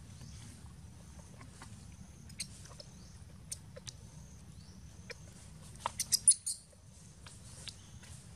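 Baby macaque giving a quick run of five or six sharp, high squeaks about six seconds in, over scattered faint clicks and a steady low hum.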